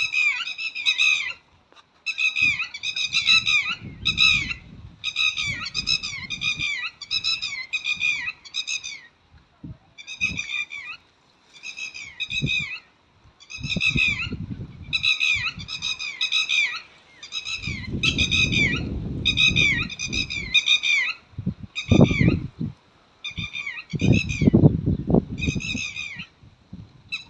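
Red-wattled lapwing calling in rapid series of sharp, high notes, about four a second, broken by short pauses. Low rumbling noise comes in at several points in the second half.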